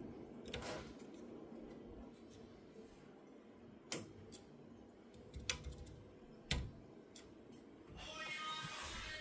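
Handling noise as fingers pull and push the plastic-sleeved connectors on a gas boiler's ignition electrode: a few sharp clicks, the loudest about four seconds in and another about six and a half seconds in. Background music comes in near the end.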